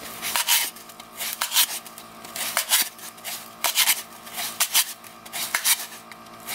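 Wooden dowel rod pushed through the wall of a disposable cup to poke drainage holes: a string of short, irregular scraping pops.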